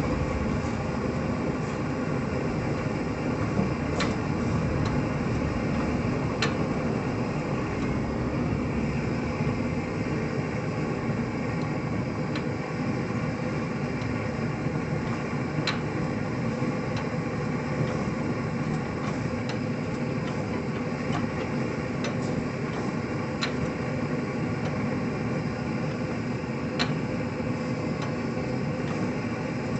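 Kelly and Lewis H1 hot-bulb two-stroke stationary engine running steadily, with a few short sharp ticks now and then.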